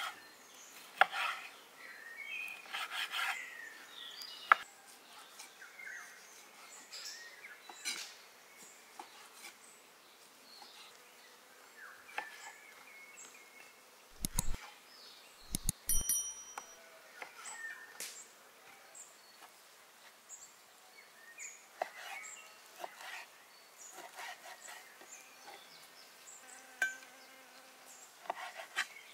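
Kitchen knife cutting through raw meat on a wooden cutting board: scattered short taps and scrapes as the blade meets the board. Insects buzz in the background, and there are a couple of low thumps about halfway through.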